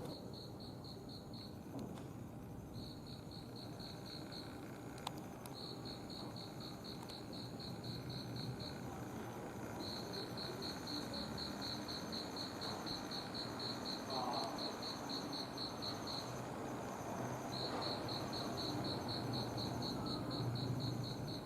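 Crickets chirping: a high, quick pulsing trill, about seven pulses a second, in runs of a few seconds broken by short pauses, over a faint low background rumble.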